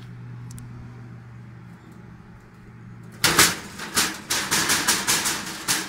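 A steady low hum, then from about three seconds in a rapid run of loud knocks and rattles from the steel plate as a plasma-cut part stuck in the sheet is worked loose.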